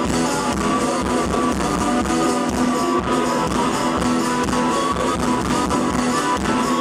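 Live band music led by a strummed acoustic guitar over a steady beat, with no singing.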